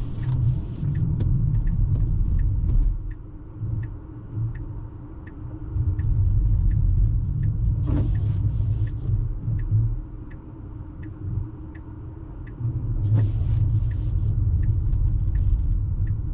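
Inside a Tesla electric car's cabin, a low, uneven road and tyre rumble from driving on a snowy road, with the turn-signal indicator ticking steadily at about two and a half clicks a second. A brief hiss swells up twice.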